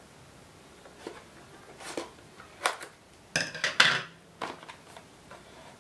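Scissors snipping through the seal of a small cardboard product box: a few short, crisp snips spaced out, then a louder cluster of clicks and knocks just past halfway as the box is handled.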